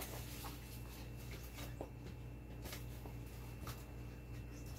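Faint squishing and rustling of gloved hands working chili seasoning into cabbage in a plastic basin while kimchi is mixed by hand. There are a few scattered soft clicks, over a low steady hum.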